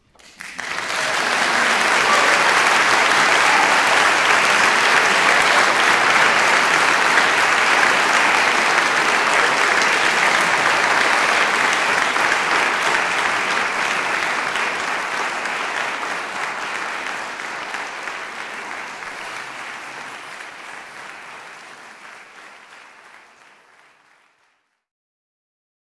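Audience applauding, starting suddenly about half a second in, holding steady, then fading out gradually over the last several seconds.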